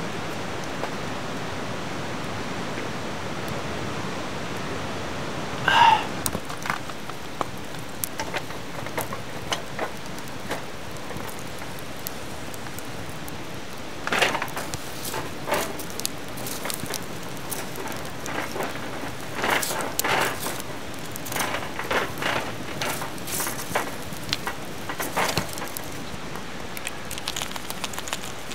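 A steady rushing noise for about six seconds, then a charcoal fire under a wire grill rack crackling and popping, with scattered sharp crackles thickening from about halfway.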